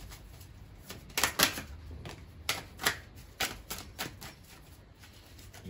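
Tarot cards being handled and shuffled: a series of sharp card snaps and taps at irregular intervals, the loudest about a second in.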